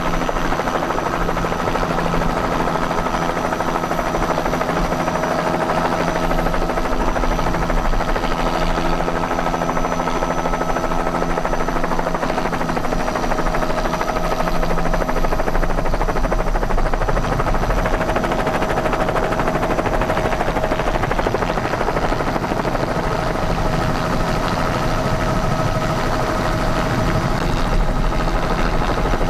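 Helicopter turbine and rotor noise, heard steady and loud from aboard the helicopter, with a constant whine over a low drone.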